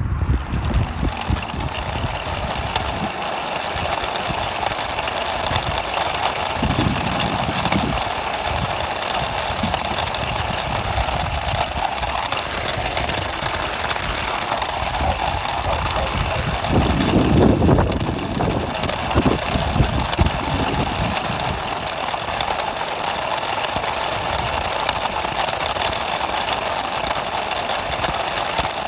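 Radio-controlled toy car's motor and gears running steadily, with irregular low rumbles, strongest around two-thirds of the way in.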